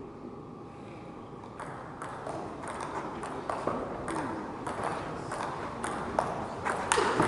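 Table tennis rally: a quick run of sharp clicks as the celluloid-type ball is struck back and forth with rubber-faced paddles and bounces on the table, starting about a second and a half in and getting louder toward the end.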